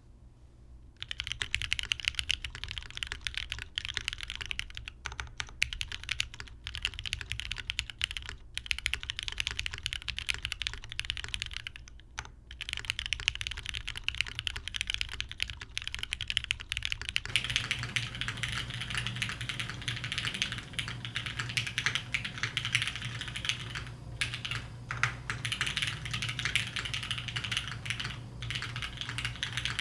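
Continuous fast typing on a TGR GSK 910 mechanical keyboard with lubed, broken-in Cherry MX Black linear switches, a polycarbonate plate and GMK keycaps, starting about a second in. A little over halfway through, the recording switches from a studio microphone to the camera's built-in mic, which picks up more low hum and a fuller, less crisp keyboard sound.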